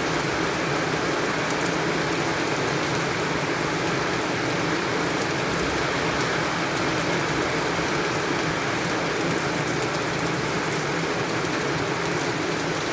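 Rain falling steadily, an even rushing hiss with no let-up.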